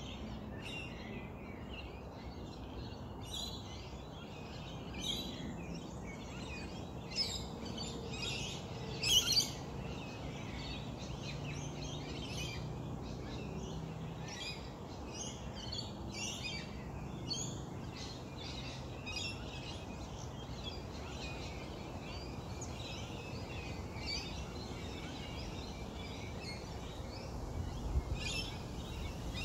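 Bush birds calling all around, a steady scatter of short chirps and tweets, loudest about nine seconds in, over a constant low outdoor background hum.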